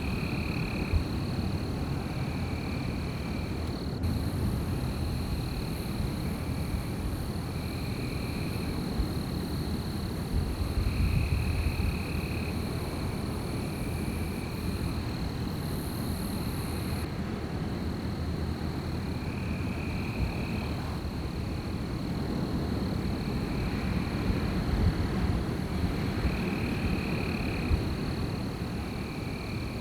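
Steady wind with a low rumble. Over it run a continuous high-pitched drone and short calls of about a second each, repeating every couple of seconds.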